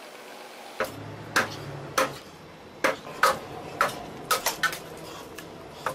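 A hand tool chopping into a large log: about ten sharp, ringing strikes at irregular intervals of roughly half a second, over a low steady hum.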